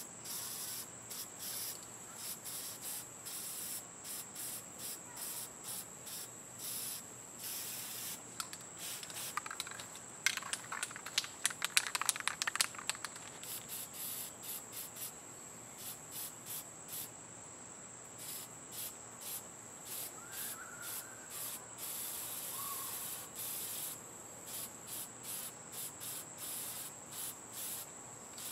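Rust-Oleum camouflage spray paint can hissing in many short, repeated bursts, with a steady high insect drone behind. About a third of the way in, a few seconds of rapid clicking rattle stand out as the loudest sound.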